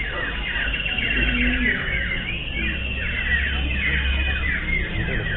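Several common ioras singing at once: quick falling whistled notes, densely overlapping and repeated without a break, over a low rumble.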